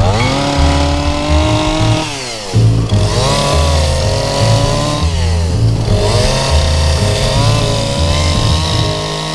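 Gas chainsaw revving up and cutting into a pine log three times: each time its pitch rises quickly and holds, then drops off briefly between passes. Background music runs underneath.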